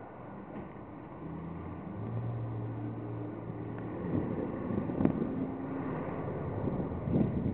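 A car engine running close by, a low steady hum for a couple of seconds, then wind buffeting the microphone in gusts from about four seconds in.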